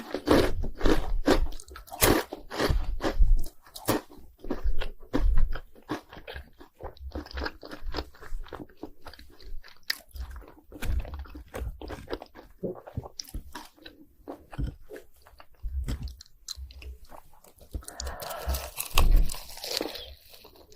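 Close-miked crunching and chewing of fried cheese balls coated in crushed spicy Hot Cheetos: a dense run of crisp crunches, loudest in the first few seconds, settling into softer chewing, with a short louder stretch near the end.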